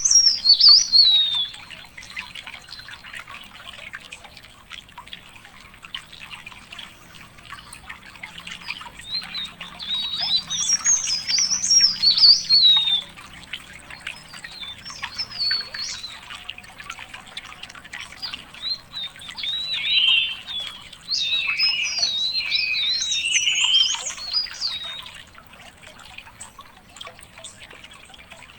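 Songbirds singing: several bursts of fast, high-pitched warbling twitter, with quick rising and falling notes. There is one burst at the start, a longer one a third of the way in, and a busier, lower-pitched burst past the middle.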